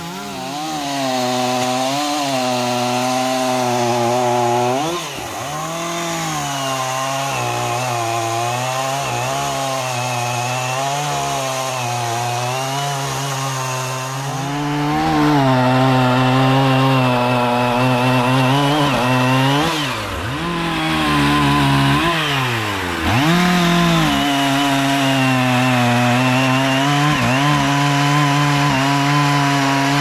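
Stihl MS 460 two-stroke chainsaw cutting into a thick jackfruit tree trunk. The engine pitch wavers as the chain loads up in the wood and dips sharply several times, about five seconds in and twice roughly two-thirds of the way through, before revving back up.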